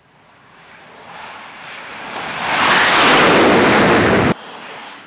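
F/A-18 Hornet-family fighter's twin jet engines on approach to land on a carrier deck. The noise swells steadily louder, with a high whine falling slightly in pitch, then holds loud for over a second. It cuts off abruptly about four seconds in, leaving quieter jet noise that starts to build again.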